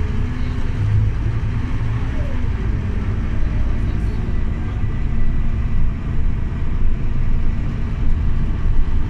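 Scania OmniLink CK270UB city bus running, a steady low rumble of engine and drivetrain.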